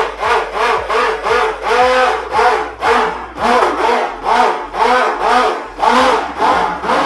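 Handheld stick blender running in a bowl of goat milk, olive oil and lye soap batter, its motor pitch rising and falling about three times a second as it is worked through the mixture.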